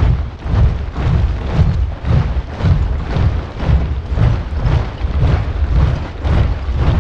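A large body of soldiers marching in step, many boots stamping together in a steady rhythm of about two heavy steps a second.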